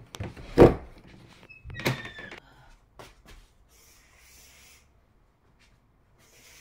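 A room door being opened: the handle and latch click and the door knocks about half a second in, followed by a short squeak and more clicks around two seconds. Around four seconds comes a brief soft swish of curtains drawn back along their rail.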